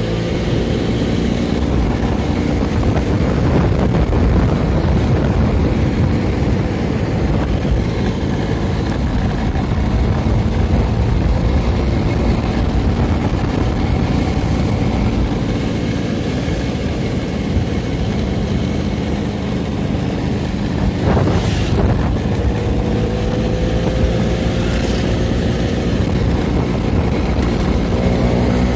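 Vintage Vespa scooter's two-stroke single-cylinder engine running steadily under way, its pitch sliding as the revs change near the start and end. A brief rushing sound about three-quarters through.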